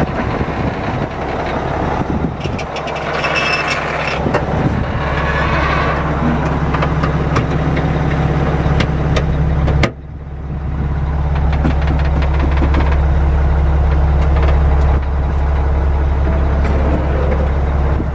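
Mack E7-350 inline-six diesel engine idling steadily, heard from inside the truck's cab. About ten seconds in there is a sharp click, after which the level dips and climbs back to the same steady idle.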